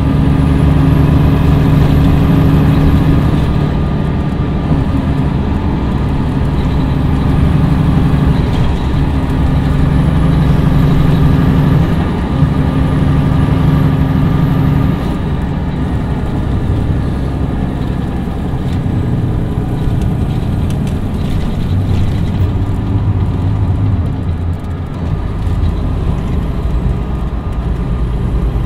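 Cummins ISM diesel engine of a 2011 MCI D4505 coach running, its steady note breaking off and picking up again several times in the first half, with a faint high whine that rises and then drops off each time. From about fifteen seconds in it runs lower and quieter.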